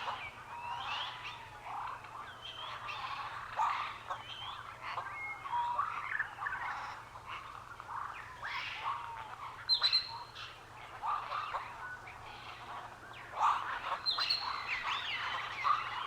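Many birds calling at once: a dense, overlapping chorus of short chirps and whistled, gliding notes with no pause.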